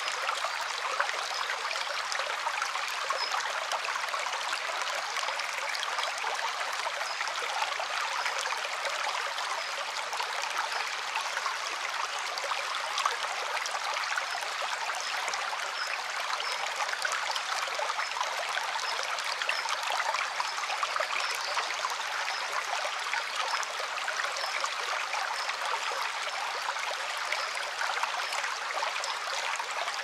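Shallow stream flowing over stones and pebbles in a rocky bed: a steady rush of water with small trickles around the rocks.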